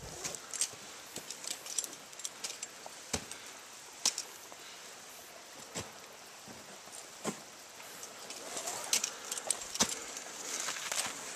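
Metal climbing gear clinking and knocking in irregular sharp clicks, with boots crunching and scraping on snow and rock as climbers scramble up a snowy gully.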